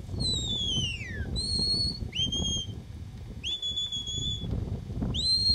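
Sheepdog handler's whistle commands to a working border collie: about five separate whistle notes, starting with a long falling whistle, then short level notes, a long steady note, and one that rises and drops away near the end, over a low rumble.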